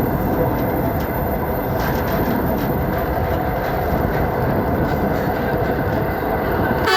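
Steady rumble and rattle of a train running on the rails, heard from on board. A horn sounds briefly right at the end.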